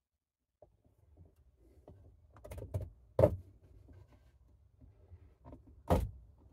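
Go-bar rods and a wooden caul being handled and set in place to clamp braces onto a guitar top while the glue sets: light scrapes and small clicks of wood, with two sharp knocks, one about three seconds in and one near the end.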